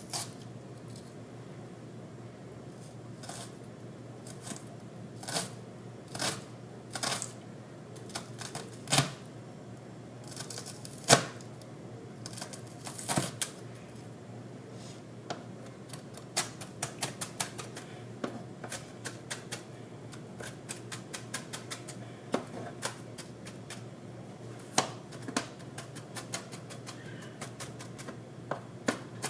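Kitchen knife chopping a shallot on a cutting board. First come separate, spaced knocks, then from about halfway a quick run of light, even taps.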